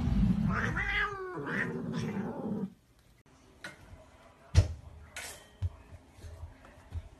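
Domestic cat yowling: a drawn-out, wavering call about a second in and a shorter one soon after, then the sound cuts off. Faint rustling and a single sharp tap follow.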